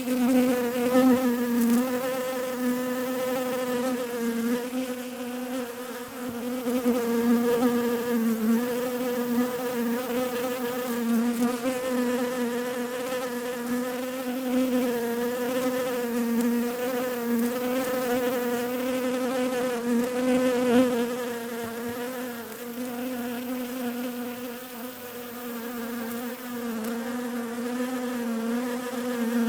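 Bees buzzing close by in a continuous, steady drone with a slightly wavering pitch, swelling and fading a little as they move about.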